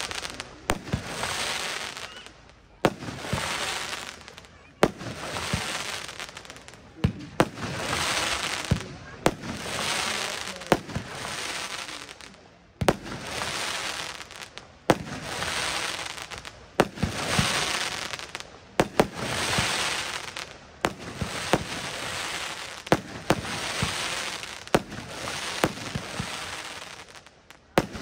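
Firework battery (cake) firing single shots about every two seconds, each a sharp crack followed by a hissing tail that fades over about a second and a half.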